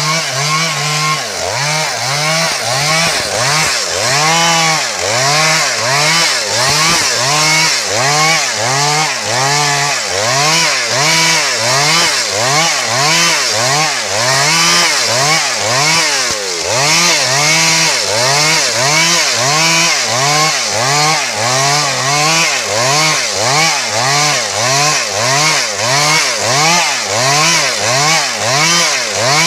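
Stihl MS 382 two-stroke chainsaw, loud, revving up and falling back over and over, about once a second.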